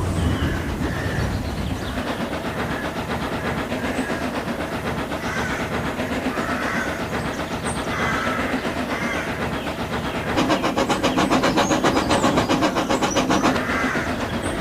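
Train running along the rails, a steady rhythmic clatter. About ten seconds in it grows louder with a fast, even beat for a few seconds, then eases back.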